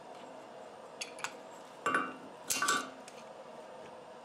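Forged steel cupping tool clinking against the steel anvil as it is set into the hardy hole: two light taps about a second in, then two louder clanks with a brief ring about a second later.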